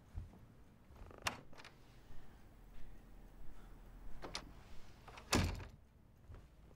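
A wooden hotel-room door being opened and closed: sharp latch clicks about a second in and again around four seconds in, then the door shutting with a thud about five and a half seconds in, the loudest sound.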